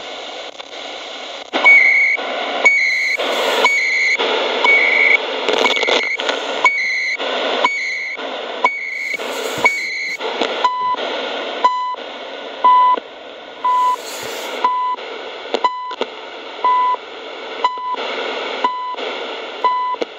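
Shortwave reception from a small portable radio's speaker: hissy noise with a short steady beep repeating about once a second. From about ten seconds in, the beep drops to a lower pitch.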